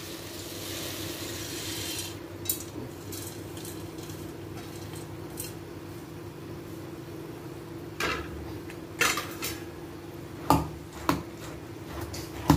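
Fried boondi poured out of a stainless steel bowl with a rattling hiss for about two seconds. A steel spoon then stirs it in a steel bowl, with several sharp clinks of metal on metal in the second half, over a steady low hum.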